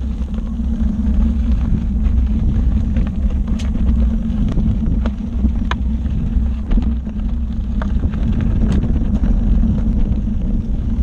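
Gotway ACM electric unicycle rolling over a loose gravel trail: a steady low rumble of wind buffeting the microphone and the tyre on the dirt, with scattered sharp ticks from small stones.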